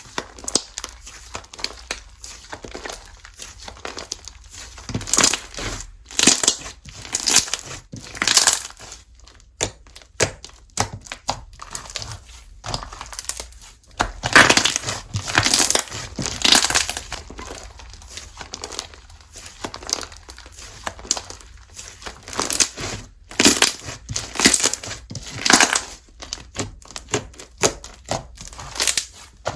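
Slime being squeezed, pressed and stretched by hand, giving a run of crackling, popping clicks that come in louder clusters every several seconds.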